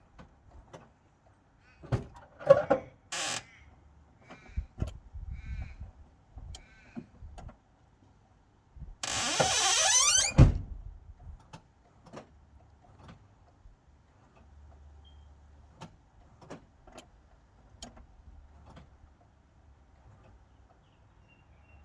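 Car door sounds and knocks, a few short chimes, then about nine seconds in the Holden VR Commodore's engine cranks and starts with a rising burst lasting about a second and a half, ending in a heavy thump like a door shutting; after that only a faint low running sound and small knocks.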